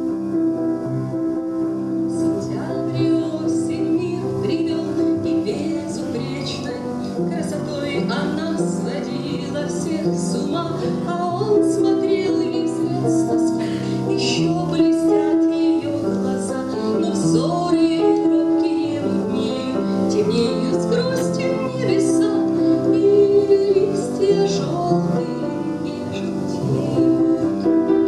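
A woman singing a romance to upright piano accompaniment.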